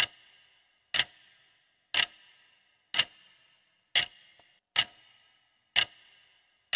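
Clock-tick sound effect of a quiz countdown timer: sharp ticks about once a second, each with a short fading tail.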